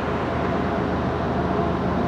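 Diesel locomotives of a Canadian National freight train running steadily, a continuous low engine drone under even train noise.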